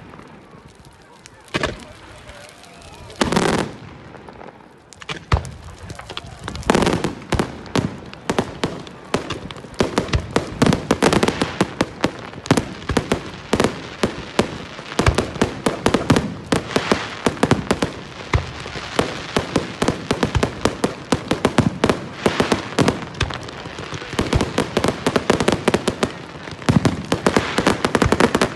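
Aerial fireworks bursting: a few single bangs at first, then from about eight seconds in a dense, rapid run of bangs and crackling.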